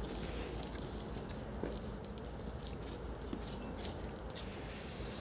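Burning straw crackling in irregular sharp pops as it singes the hair off a goat carcass.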